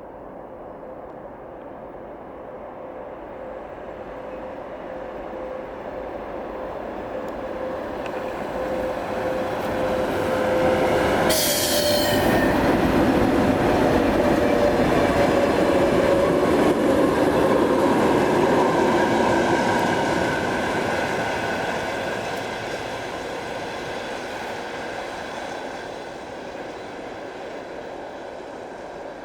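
VL80S twin-section AC electric locomotive hauling a repair train, approaching, passing and receding: the rumble and wheel noise on the rails grow louder to a peak, hold for several seconds, then fade away. A steady hum carries through the approach, and there is a sharp crack about eleven seconds in.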